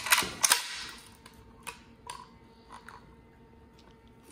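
Metal clicks and clacks from handling a Century Arms Mini Draco AK-pattern pistol: two sharp clacks in the first half second, then a few faint ticks and rattles over the next couple of seconds.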